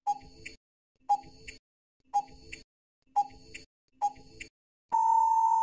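Quiz countdown timer sound effect: five short ticks one second apart, then a long steady beep about five seconds in that marks time up.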